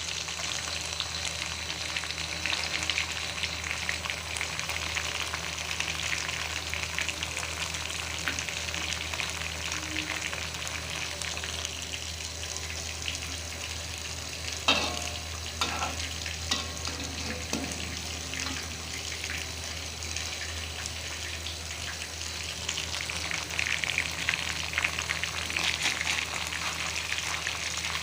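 Food sizzling as it fries in a pan, with a few sharp knocks of a utensil against the pan about halfway through.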